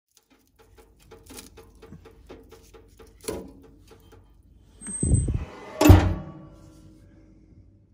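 Faint clicking, then the glass door of a Hwam 4620c wood-burning stove being swung shut: a short squeal and a heavy clunk about five seconds in, then a louder metal clunk a second later as it closes, ringing briefly.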